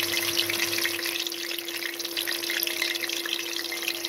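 Green onions frying in hot oil in a pot: a steady, dense sizzle and crackle of many tiny pops, with a faint steady hum underneath.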